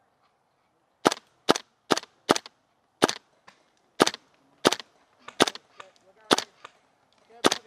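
Airsoft gun firing single shots: about ten sharp pops at uneven intervals, one or two a second.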